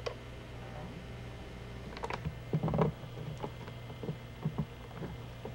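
Room tone picked up by a camcorder's built-in microphone: a steady low hum with scattered soft clicks and taps at irregular intervals, the loudest a little before the middle.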